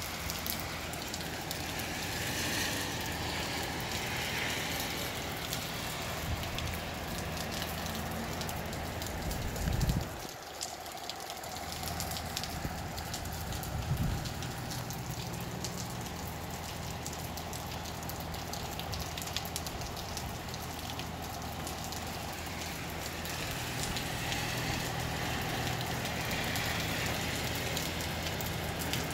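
Steady rain falling in a rising southeast wind, over a low rumble. Two brief knocks come about ten and fourteen seconds in.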